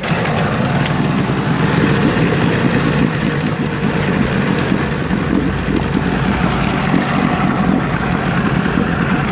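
Evinrude Sportwin twin-cylinder two-stroke outboard motor running loud and steady in a test barrel, its propeller churning the water. The sound gets suddenly louder right at the start and then holds even.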